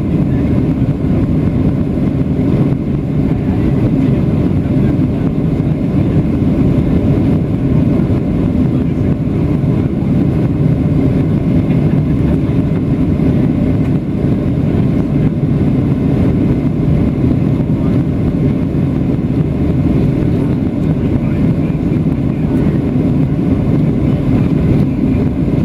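Steady engine and airflow noise inside the cabin of a Boeing 737-700 during the climb after takeoff, its CFM56-7B turbofans at climb thrust; a low, even rumble with no change in level.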